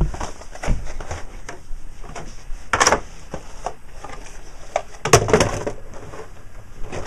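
Torn cardboard and paper packaging being handled and crumpled, with scattered rustles and scrapes and two louder rustling bursts, about three and five seconds in.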